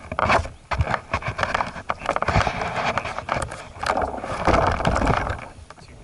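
Scraping, knocking and clicking as a model T-28 airplane is handled and set down on grass, picked up through the airframe by a camera mounted on the model, with wind buffeting the microphone. The noise eases off near the end.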